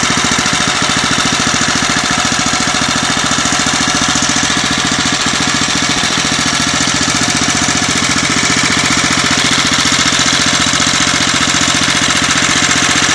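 Freshly rebuilt Norton Villiers F12 single-cylinder, air-cooled stationary engine running steadily with a fast, even firing beat. It gets slightly louder about two-thirds of the way through.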